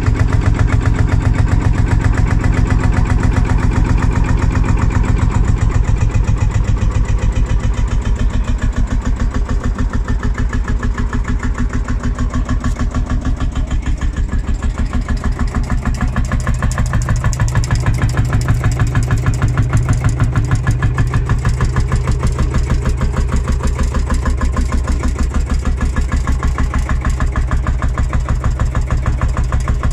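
Field-Marshall tractor's single-cylinder two-stroke diesel engine running at idle, with a rapid, even beat.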